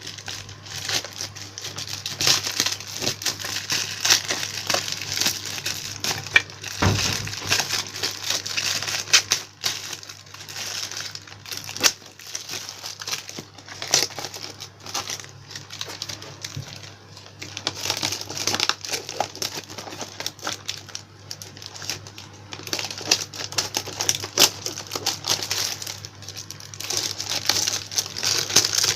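Packaging crinkling and rustling as it is cut open with scissors and unwrapped by hand, with many small irregular clicks and crackles, over a faint steady low hum.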